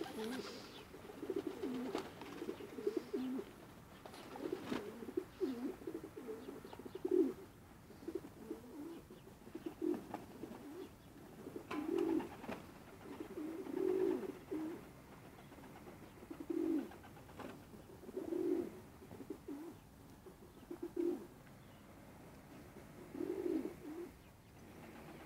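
Homing pigeons cooing, low coos coming again and again every second or two.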